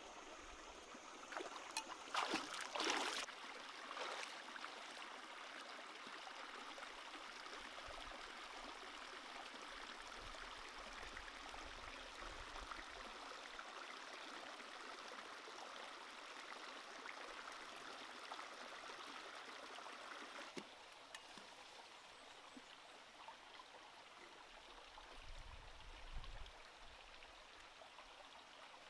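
Faint running water of a small stream, trickling steadily, with a few brief louder sounds about two to four seconds in; the flow gets a little quieter after about twenty seconds.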